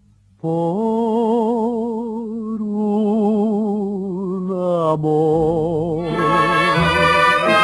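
Ranchera song opening after a brief silence: a solo voice holds a long note with wide vibrato, then slides down to a lower held note. Instrumental accompaniment comes in near the end.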